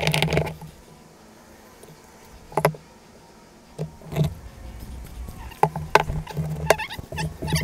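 Hard plastic Precision Ports flared port tubes being handled, twisted together and set down on a workbench: scattered clacks and knocks, a burst at the start, single ones a few seconds apart, then a busy run of clatter near the end.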